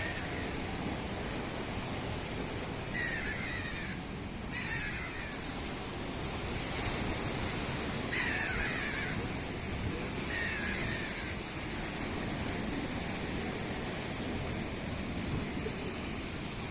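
Four harsh bird calls, each about a second long and spaced a few seconds apart, over a steady wash of sea and wind noise.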